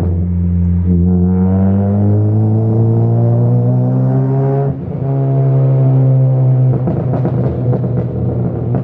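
Honda Civic Si four-cylinder running through a catless 3-inch downpipe and catback exhaust, heard from inside the cabin under hard acceleration. The pitch rises steadily, drops briefly at a gear change about five seconds in, then climbs again. Near the end it breaks up into a string of short sharp pops.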